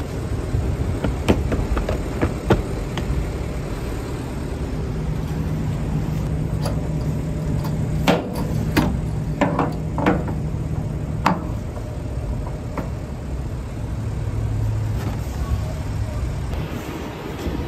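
Semi truck's engine idling with a steady low rumble, a steady hum joining in for a few seconds in the middle. Over it come a series of sharp knocks and clicks, most of them bunched together in the middle.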